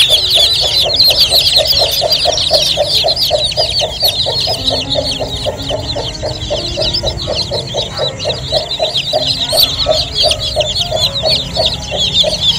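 A crowd of newly hatched chicks peeping loudly and without pause, dozens of high chirps overlapping. Beneath them runs a fast, even low pulsing of about five beats a second.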